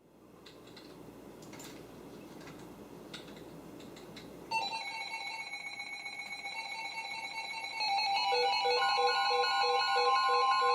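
Several weather-alert radios going off together. After a few seconds of receiver hiss and crackle, electronic alarm beeps and chime patterns start about four and a half seconds in. They get louder near eight seconds, when a steady alert tone joins them, signalling an incoming warning.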